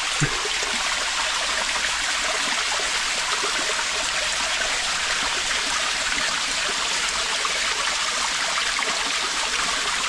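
Steady rush of running water inside a limestone cave: an even, unbroken hiss of water flowing and falling.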